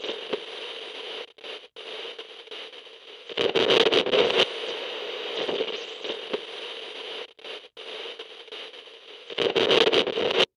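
Glitchy static-and-crackle sound effect with a few brief dropouts, swelling into louder noisy bursts twice, about three and a half seconds in and near the end, then cutting off suddenly.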